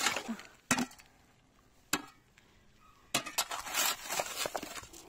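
Thick pond ice being struck and levered with a small metal hand tool: a few sharp knocks about a second apart, then, about three seconds in, a burst of cracking and crunching as the ice sheet breaks up.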